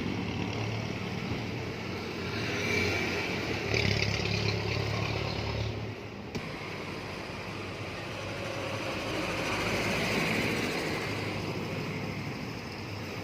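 Steady motor-vehicle and road noise that swells twice, like traffic passing.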